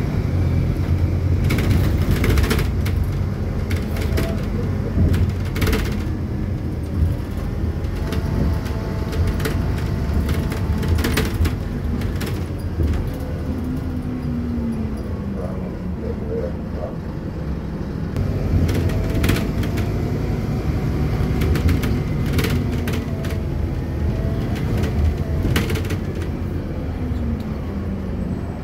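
Bus cabin sound: a steady low engine rumble with a faint whine that rises and falls as the bus moves off and slows in traffic, and scattered rattles and clicks from the body.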